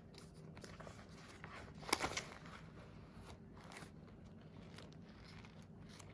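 Paper pages of a spiral-bound printed workbook being turned by hand: faint rustling, with a louder crackle of a page flipping over about two seconds in.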